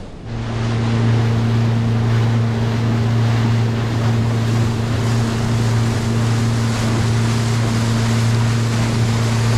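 Boat engine running at a steady speed, a constant low hum under a loud rushing hiss of wind and water.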